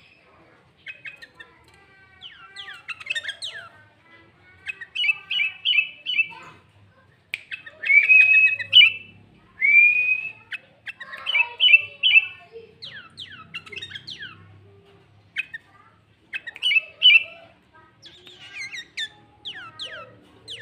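Sooty-headed bulbul (kutilang) singing in loud bursts, each a run of quick falling chattering notes and short slurred whistles, separated by brief pauses.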